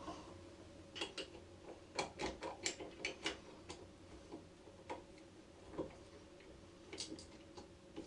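Irregular small metallic clicks and taps from a screwdriver and small fittings being worked in an electric motor's terminal box, coming in short clusters, over a faint steady hum.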